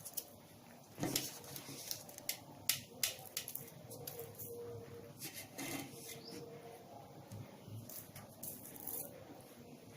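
Light, irregular clicks and taps of kitchen utensils and containers being handled while spices are added to a cooking pot.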